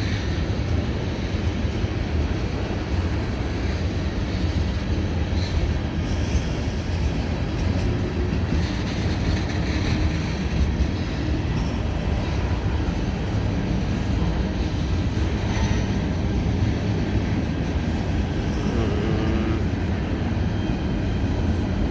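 A long freight train's cars rolling slowly past, a steady rumble of steel wheels on the rails with faint clicks and rattles.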